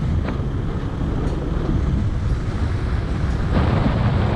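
A motorcycle riding along at road speed: steady wind rush over the microphone with engine and road noise underneath, growing louder and brighter about three and a half seconds in.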